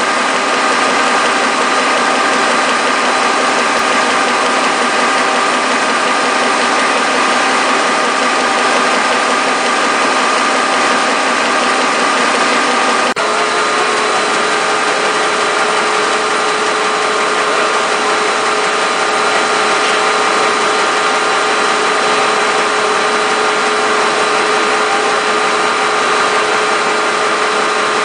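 Web-fed offset printing press running at speed: a steady mechanical whir with constant humming tones, which shift abruptly about halfway through.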